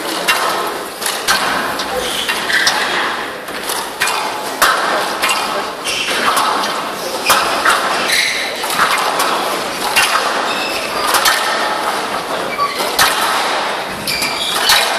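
Squash rally on a glass court: the ball knocked sharply off rackets and walls again and again at an irregular pace, over background crowd voices.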